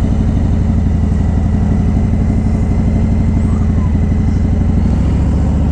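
Harley-Davidson V-twin motorcycle engine idling steadily close to the microphone, with an even pulse.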